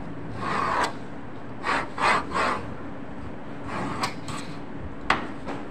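A hand knife scraping across sheet material on a cutting table in short strokes: one near the start, a quick run of three about two seconds in, a few more around four seconds, and a sharp tap about five seconds in.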